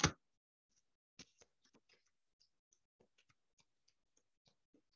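Tarot cards being handled on a cloth-covered table: a sharp tap at the start, then faint, scattered clicks and taps of cards being picked up and moved.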